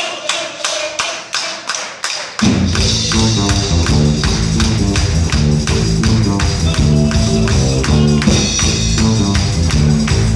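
Live band playing a fast Bolivian tinku: quick even percussive taps open it, and about two and a half seconds in the full band comes in with guitars and a steady driving beat.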